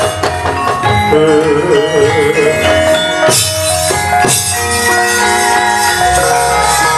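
Javanese gamelan playing for a wayang kulit show: many steady ringing metallophone notes, with a wavering melodic line about a second in and sharp jingling strikes around three and four seconds in.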